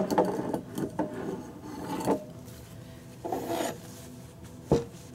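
Paper towel rubbed over a glass jar in short scraping strokes, with a few knocks of the jar on a wooden table, the sharpest one near the end.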